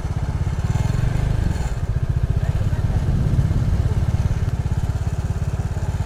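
Motorcycle engine running steadily at low revs, a continuous even throb.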